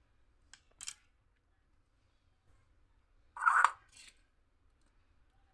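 Small tools handled on a workbench: two light clicks near the start, then a brief clatter about three and a half seconds in and a softer one just after.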